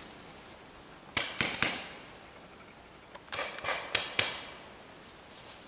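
Paintball marker shots: two sharp pops about a second in, then a quick run of four more about three and a half seconds in.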